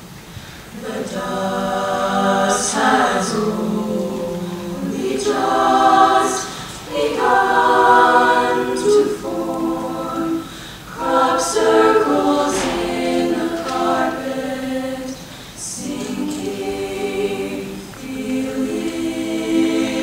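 All-female a cappella group singing close-harmony chords with no instruments, several voices holding notes together in phrases of a few seconds with short breaks between them.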